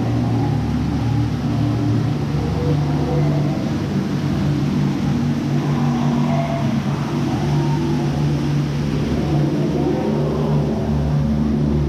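Boat dark ride's ambient soundscape: a steady low drone of sustained tones that shift slowly, with faint wavering higher calls over it.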